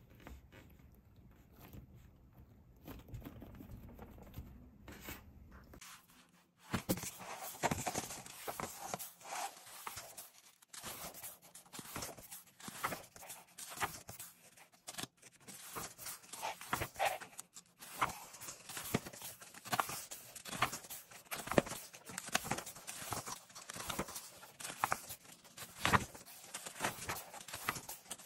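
Paper pages of a colouring book being rubbed and turned by hand: a long run of crisp rustles and page flicks. It starts about six seconds in, after a quiet stretch with only a faint low rumble.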